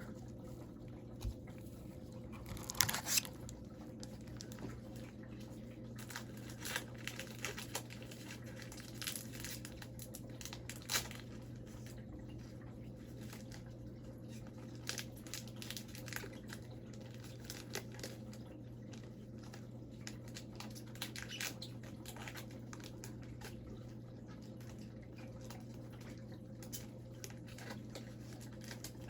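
Scattered soft crinkling and rustling as a foil trading-card pack is torn open and its cards are handled, with the loudest crinkle about three seconds in, over a steady low hum.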